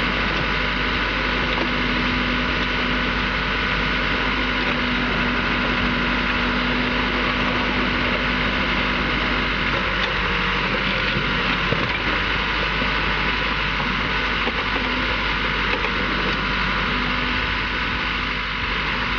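Excavator's diesel engine running steadily as its bucket digs through broken rock, with a droning tone that drops away about halfway through and one louder knock a little past the middle.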